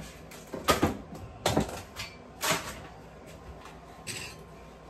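Kitchen containers and seasoning bottles being handled and set down on the counter: three sharp knocks about a second apart, then a lighter one near the end.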